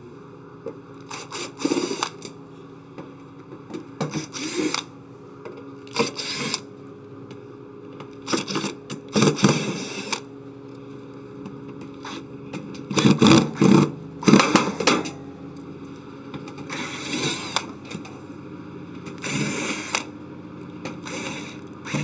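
Cordless screwdriver running in short bursts, about ten of them, backing the quarter-inch/Phillips screws out of a refrigerator's sheet-metal rear panel.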